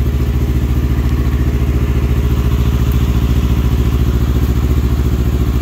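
2022 Yamaha YZF-R3's 321cc parallel-twin engine idling steadily through an aftermarket Akrapovič exhaust, with an even, lumpy beat.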